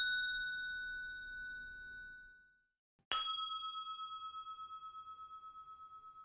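Two single bell-like dings, each struck once and left to ring. The first, higher one fades away over the first two seconds or so. The second, lower one comes about three seconds in and rings on with a wavering, pulsing tone that slowly fades.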